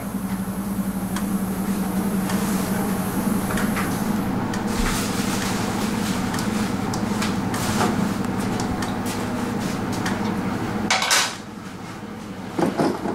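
A steady low hum with scattered light metallic clinks and clicks. The hum cuts off suddenly about eleven seconds in, leaving a few sharper clicks.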